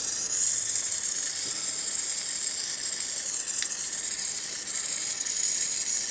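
Gas blowtorch burning with a steady hiss on a soft flame, heating copper joints for soft soldering. There is a faint click about three and a half seconds in.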